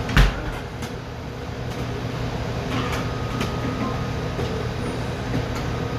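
Steady drone of a commercial kitchen exhaust hood fan with a low hum. A sharp knock comes just after the start, followed by a few light clicks.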